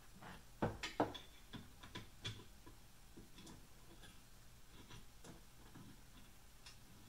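Small metal parts clicking and knocking as steel guide rods and a hex key are handled on an aluminium CNC router frame. A burst of sharp clicks and knocks comes in the first couple of seconds, the loudest about a second in, then lighter scattered ticks.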